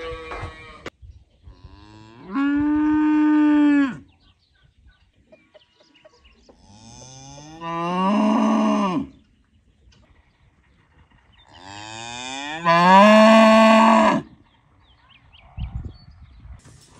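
A cow mooing three times, each call about one and a half seconds long, with pauses between.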